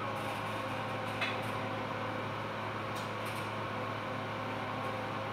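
Steady low machine hum of operating-room equipment, with a couple of faint clicks about a second in and again near three seconds.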